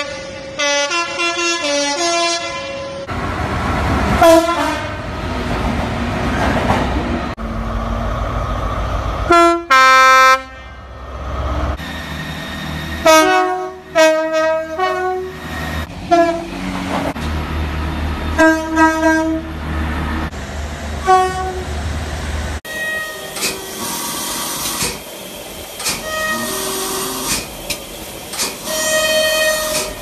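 A run of British train horns, one train after another, each sounding short two-note high-low blasts, with the rumble of trains running through the station between them. The sound changes abruptly where one recording gives way to the next.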